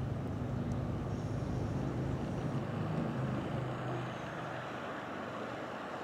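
A vehicle passing on a nearby street: a steady low engine hum that fades away after about four seconds.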